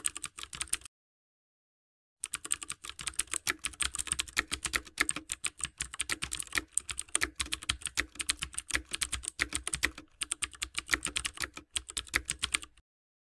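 Keyboard typing sound effect: a fast, continuous run of key clicks that drops out for about a second and a half near the start, then runs on until shortly before the end. It accompanies text being typed out letter by letter on screen.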